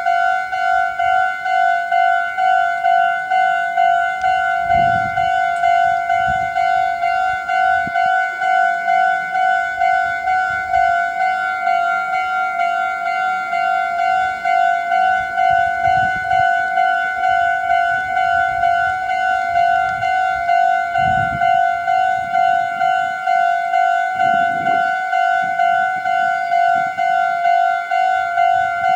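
Japanese level-crossing electronic warning bell ringing: a single bright tone repeated in a quick, even rhythm of a few strikes a second, signalling that the crossing is closed for an approaching train. Faint low rumbles come and go underneath.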